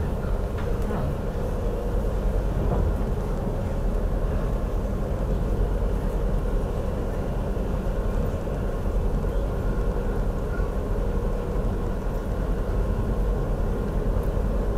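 Steady running rumble of a passenger train at speed, heard from inside the carriage: wheels on rail and running gear. The noise is even and low-pitched.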